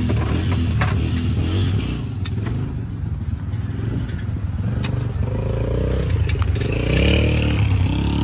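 Dirt bike being unloaded from a van down a metal ramp: clattering and scraping knocks of the bike and ramp, over the steady drone of motorcycle engines running, which rises in pitch at about five to seven seconds in.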